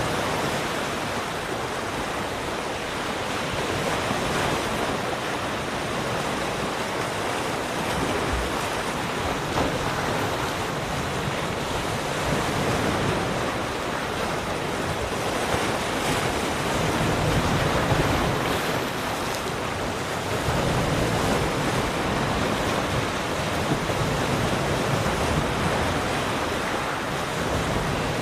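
Ocean waves breaking and washing on a shore: a continuous surf noise that swells and eases without pause.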